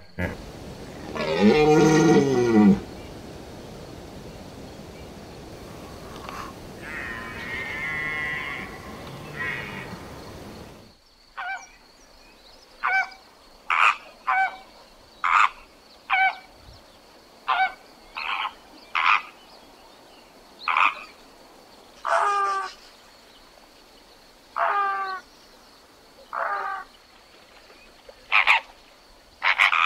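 A hippopotamus calls once, a single long call of about two seconds near the start, followed by a steady noisy background. From about eleven seconds in, flamingos give short calls, one every second or two, some dropping in pitch.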